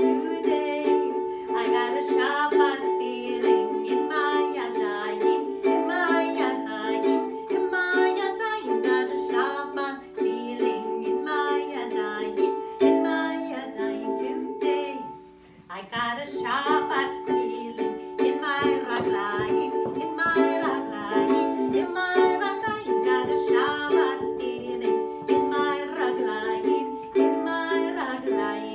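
Ukulele strummed in steady rhythmic chords, accompanying a voice singing a song, with a brief pause about halfway through.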